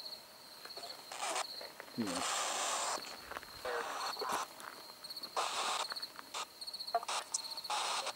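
A cricket singing a steady, high pulsing trill, while short bursts of hissing static cut in and out several times, from a spirit-box device scanning for replies.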